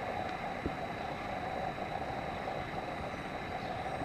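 Steady outdoor background noise with a thin, steady high whine, and a faint soft knock about two-thirds of a second in.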